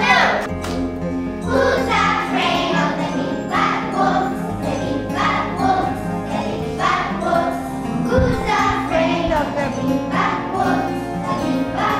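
A group of young children singing a song together over instrumental accompaniment with a steady bass line.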